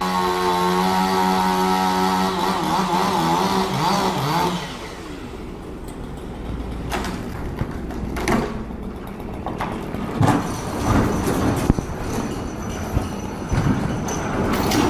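An engine running at high, steady revs for the first four seconds or so, its pitch wavering before it fades. Then comes a noisier stretch of mechanical rumble with several sharp knocks.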